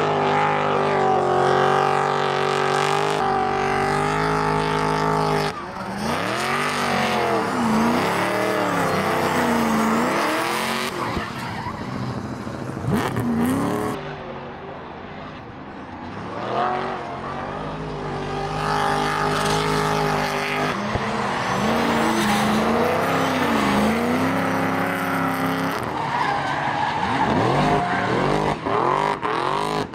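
Two drift cars, a Nissan Silvia and a BMW 3 Series, running in tandem. Their engines are held high in the revs, the pitch swinging up and down over and over as the throttle is worked through the sliding corners, over tyres screeching from the spinning rear wheels. The sound drops briefly about halfway through.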